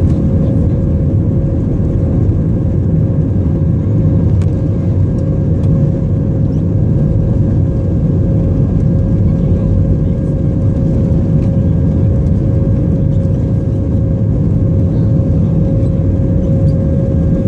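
Airbus A320 cabin noise on the ground: the engines and rolling gear give a steady deep rumble with a constant whine over it, holding one level without rising.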